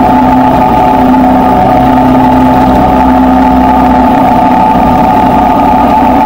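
Jet boat's engine running loud and steady at speed. Its low rumble drops away about four seconds in.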